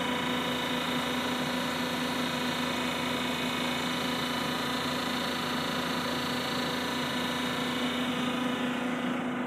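Ikegai AX25N CNC lathe running under power: a steady mechanical hum with several constant tones, unchanging throughout.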